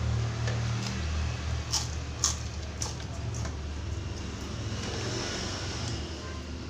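Eating noises: a few short, sharp crunches or clicks between about one and a half and three and a half seconds in, over a steady low hum.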